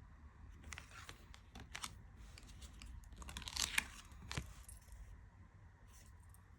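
Tarot cards being handled and flipped: light clicks and slides of card stock, with a louder rustling swipe about halfway through that ends in a sharp tap.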